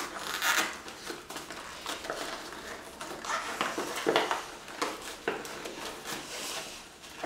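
A paper-card dodecahedron model being turned and handled in the hands: irregular rustling and scraping of card, several louder rustles spread through.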